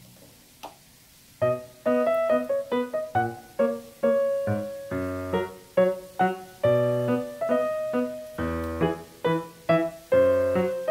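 Background music: a light piano tune with bass notes, coming in about a second and a half in after a quiet start.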